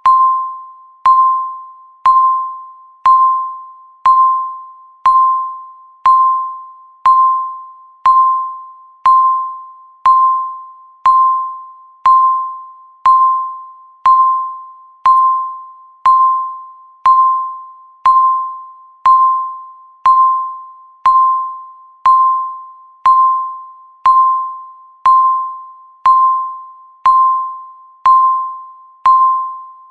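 Countdown timer's once-a-second beep: a single mid-pitched, bell-like tone that starts sharply and rings away before the next, repeating at an even one-second pace.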